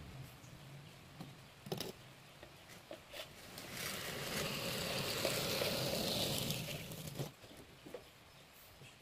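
Scraping along a freshly formed cement-and-sand fascia board as it is worked by hand: a steady scrape of about four seconds in the middle, after a few light knocks.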